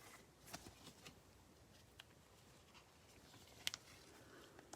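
Near silence with a few faint clicks and rustles, typical of trading cards and sleeves being handled on a table.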